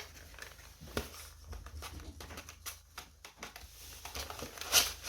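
The inner tray of a cardboard box being slid out by hand, with soft scrapes and small taps of cardboard, and a louder scuff near the end.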